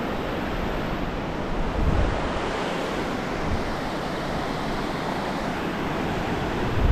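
Ocean surf washing onto a beach, a steady rushing noise, with wind buffeting the microphone in gusts about two seconds in and again near the end.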